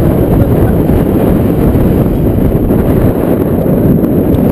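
Strong dust-storm wind buffeting the microphone: a loud, steady, low rumbling rush.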